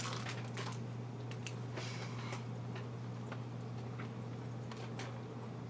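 Quiet room with a steady low hum and a scattering of faint clicks and ticks, a few close together in the first second and others spread out later.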